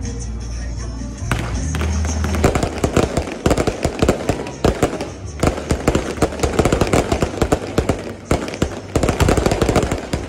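Aerial fireworks going off in a dense, rapid run of sharp cracks and pops, starting about a second in and continuing almost without a break.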